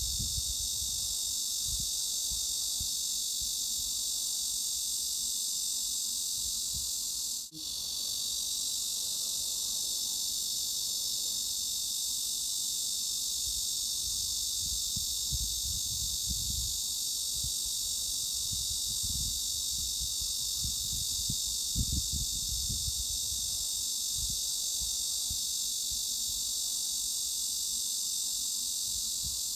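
Cicadas buzzing in a steady, high-pitched, unbroken drone, with low rumbling underneath that comes and goes. The sound drops out for a split second about seven and a half seconds in, then carries on unchanged.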